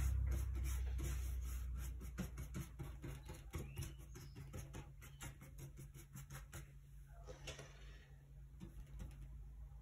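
A paintbrush working oil paint on a palette, making a run of small scratchy ticks and rubs that are louder for the first couple of seconds and then lighter. A steady low hum lies underneath.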